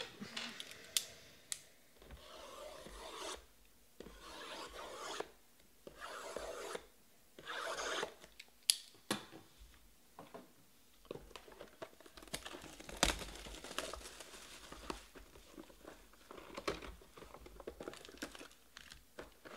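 Shrink-wrapped cardboard hobby boxes of trading cards being unwrapped and opened by hand: a series of scraping, rubbing strokes of plastic wrap and cardboard about a second each, growing denser in the second half with a few sharp clicks.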